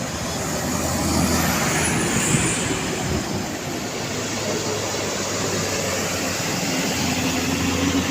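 Roadside traffic: a heavy vehicle's engine running, with steady tyre and road noise.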